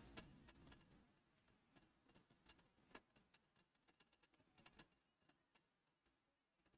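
Near silence, with faint scattered clicks over the first five seconds or so.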